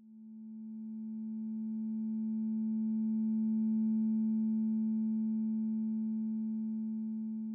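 Synthesized sustained chord of pure steady tones from a Sonic Pi data sonification, its pitches drawn from a D lydian scale and weighted by the distribution of chloride levels in red wines. It swells up from silence, peaks about four seconds in, then slowly fades.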